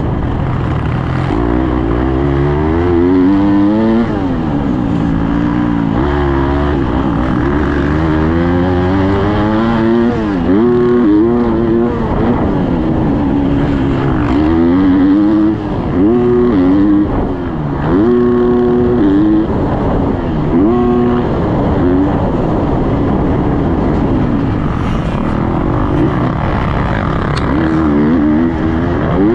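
Husqvarna motocross bike's engine revving hard, its pitch climbing and dropping back again and again as the rider works the throttle and shifts, heard close up from the rider's helmet camera.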